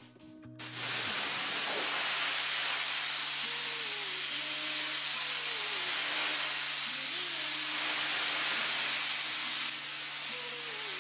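Pressure washer spraying a jet of water across a wet rug on a tile floor: a loud, steady hiss that starts about half a second in, over a steady low hum.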